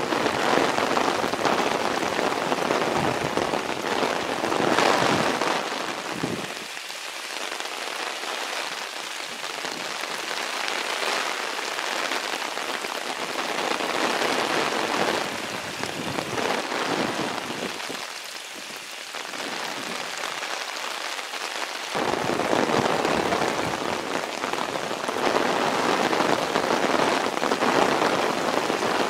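Hard, wind-driven rain pouring down on garden plants: a dense hiss that swells and eases over the stretch.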